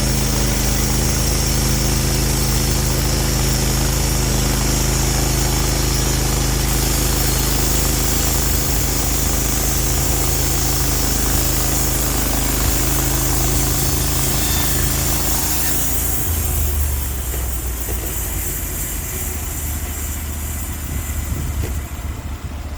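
Sawmill engine running steadily under load while the blade cuts, with a loud hiss over the engine note. About two-thirds of the way through the hiss drops away and the engine settles to a lower, steadier run as the cut ends.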